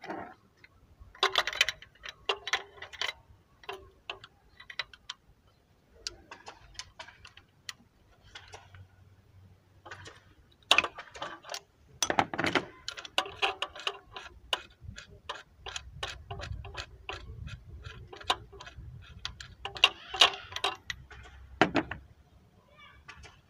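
Ratchet wrench clicking in several runs of quick, even clicks as a spark plug is worked loose from a Renault 1.4 petrol engine.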